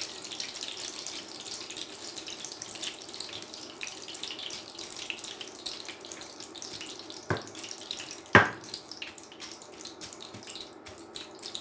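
Stone pestle crushing fried chicken into wet chilli sambal in a stone mortar (cobek and ulekan): wet squishing and crackling over a steady hiss, with two sharp stone knocks a little past the middle, the second the louder.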